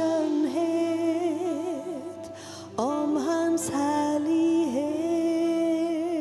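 A slow song: a solo voice singing long held notes with vibrato over a steady instrumental accompaniment.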